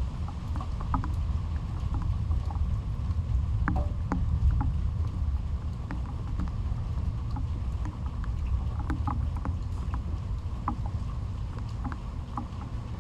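Rainstorm: a steady low rumble with scattered sharp drips and ticks of raindrops.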